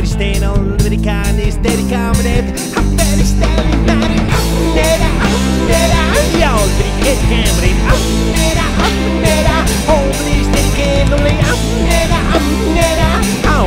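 Rock song playing: a full band with electric guitar, bass and drums on a steady beat.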